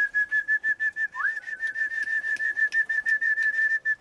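A pigeon breeder whistling to call his homing pigeons out of the open loft. Two long, high trilling whistles at one pitch, each sliding up into the note; the second starts about a second in and drops off at the end.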